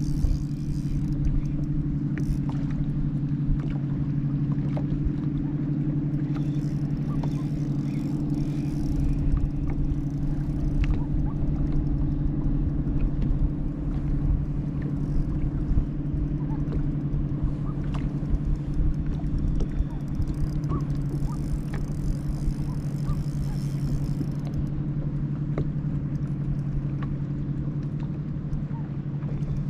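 Boat motor running steadily with an even, low hum and a rumble underneath.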